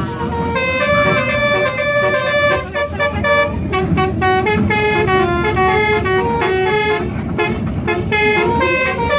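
Indonesian 'telolet' bus horn playing a tune: short notes stepping up and down in pitch, played over and over, quicker from about a third of the way in. A low rumble runs underneath.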